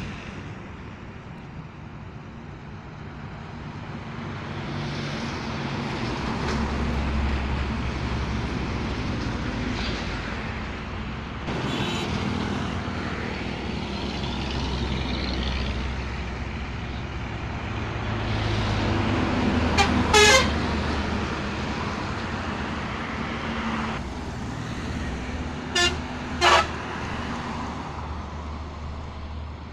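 Heavy trucks driving past on a highway, the engine and tyre noise swelling and fading as each one passes. A vehicle horn sounds once, long and loud, about two-thirds of the way through, then twice more in short honks near the end.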